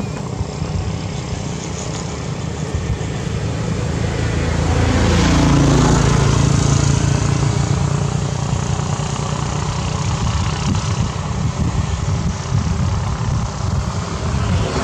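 A motor vehicle's engine running nearby, growing loudest about five to seven seconds in with its pitch falling as it passes, then carrying on as a steady low hum.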